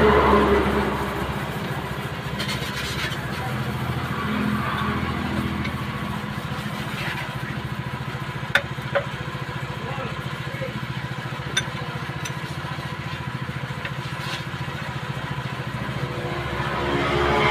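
A vehicle engine running steadily at idle, with three sharp clicks about halfway through.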